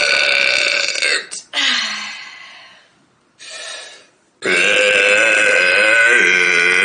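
Long, loud belches: one held until about a second in, a shorter one that fades away, a short pause, then another long, drawn-out belch starting about halfway through and still going at the end.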